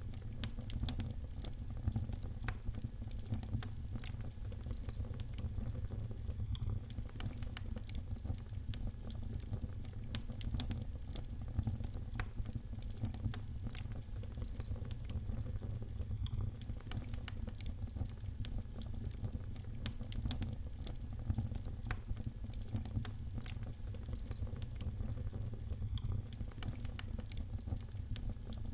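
Fireplace fire crackling: a dense, steady stream of small pops and snaps over a low, even rumble.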